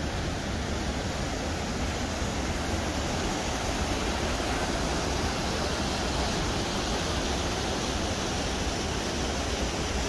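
Steady rush of the Rhine Falls, heavy water pouring over rock.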